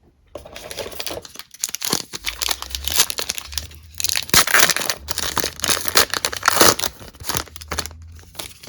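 Trading-card pack wrapper being torn open and crinkled in the hands, a dense run of crackling that is loudest in the middle.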